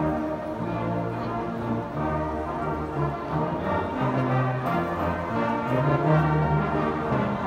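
Brass band playing a slow tune in held chords.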